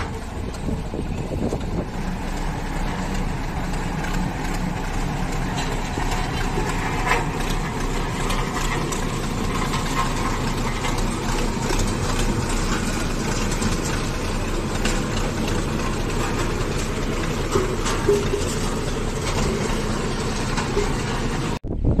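Diesel engine of a three-wheel static road roller running steadily as the roller drives over fresh gravel and bitumen, a constant low engine sound. It cuts off abruptly near the end.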